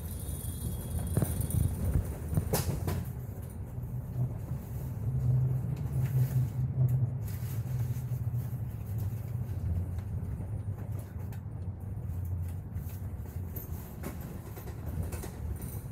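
Double-decker bus driving along, heard from on board: a steady low engine and road drone, with a few sharp knocks and rattles in the first three seconds.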